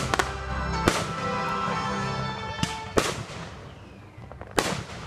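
Aerial fireworks bursting overhead: sharp bangs about a second in, near three seconds and again near the end, each with a short echoing tail. Music plays under the first bang and fades out about halfway through.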